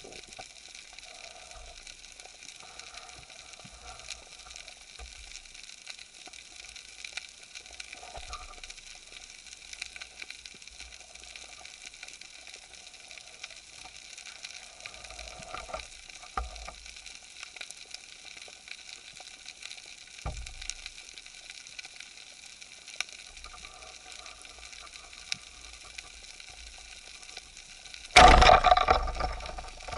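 Steady underwater crackling hiss. About two seconds before the end, a rubber-band speargun is fired: a sudden loud crack, by far the loudest sound, ringing and rattling away over the next second or so.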